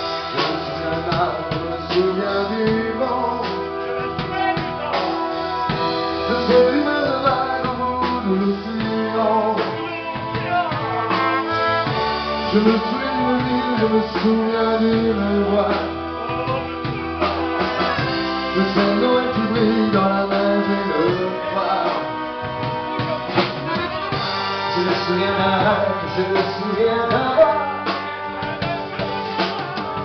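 A live dance band playing a French pop song: a drum kit keeping the beat under keyboard and accordion, with a melody line carried over the top.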